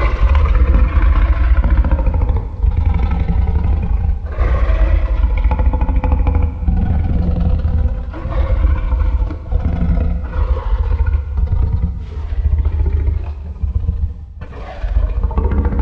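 Shin Godzilla's roar: a run of long, wavering roars that starts abruptly and breaks off and restarts every couple of seconds, over a constant deep rumble.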